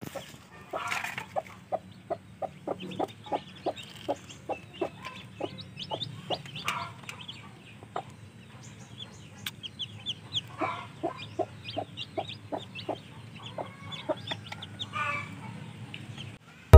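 Chickens: a hen clucking in short, low, evenly spaced clucks about three a second, with baby chicks' many high peeps over it and a few louder calls.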